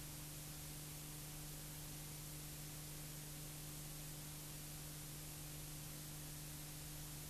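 Steady hiss with a low electrical hum and no other sound: the noise floor of a film transfer without a recorded soundtrack.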